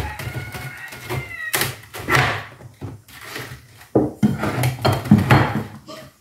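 Plastic storage tubs and a glass jar being handled and set down on a wooden shelf: a run of separate knocks and rustles, the loudest about two seconds in and again near five seconds. A faint, drawn-out high cry is heard over the first second or so.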